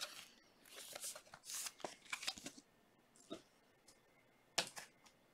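Panini Obsidian soccer trading cards being slid and flipped through by hand: a run of quick scrapes and rustles for about two and a half seconds, then a few light ticks and one sharper click near the end.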